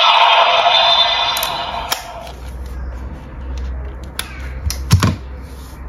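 Electronic sound effect from a homemade toy transformation device's small speaker, cutting off about two seconds in. It is followed by sharp plastic clicks and knocks as the device is handled, the loudest about five seconds in.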